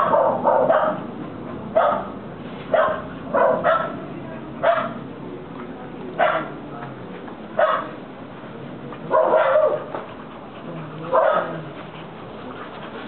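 American Pit Bull Terriers play-wrestling, one giving about a dozen short barks at irregular intervals roughly a second apart. The barks come more sparsely toward the end.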